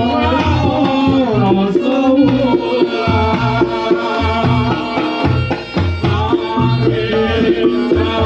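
Reog Ponorogo ensemble playing: a slompret shawm winds a melody with bending, sliding pitch over kendang drum strokes and a repeating pattern of gong-chime notes.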